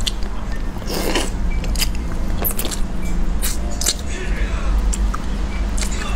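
Close-up eating sounds: lips smacking, sucking and short clicks as a bony roast duck head is gnawed. Under them runs a steady low rumble.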